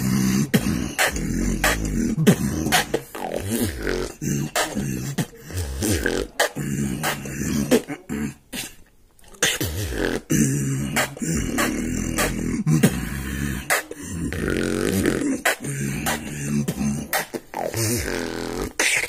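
Solo human beatboxing into a phone microphone held against the mouth: rapid mouth-made drum hits over a low, buzzing hummed bass, with a short break about eight and a half seconds in.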